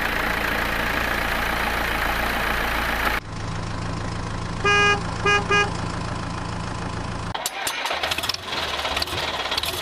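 Edited-in truck sound effects: engine noise that cuts abruptly after about three seconds to a steady low engine idle, with three horn honks in the middle, one longer and two short. Near the end the sound switches again to a stretch of sharp clicks and rattling.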